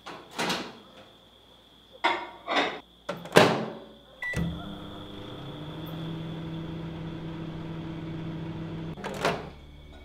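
Countertop microwave oven being shut and set going, heating food: a few clicks and knocks, a short beep, then a steady hum for about five seconds, cut off by a sharp click near the end.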